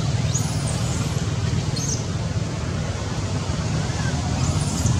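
Steady low rumble of outdoor background noise, with a few short high-pitched calls: one about a third of a second in, one near two seconds, and another near the end.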